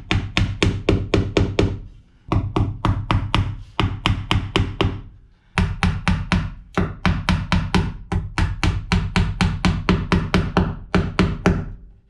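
Claw hammer tapping plastic cable staples over a red power wire into wooden framing: quick, even light blows, about five or six a second. There are three runs of taps, with short pauses about two seconds in and five and a half seconds in.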